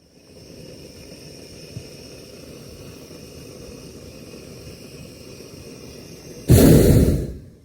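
Hot air balloon's propane burner fired in one blast of about a second, a loud sudden roar near the end that cuts in sharply and tails off. Before it, only a quiet steady hiss of the air around the drifting balloon.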